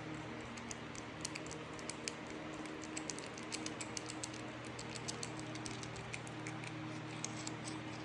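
Baileigh metal lathe running with a steady motor hum, with a scatter of sharp, irregular light ticks over it as metal is cut.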